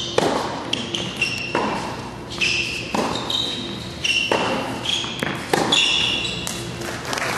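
Tennis rally on a hard court: rackets striking the ball in turn, about five hits roughly a second and a half apart, with short high squeaks of rubber-soled shoes between the hits.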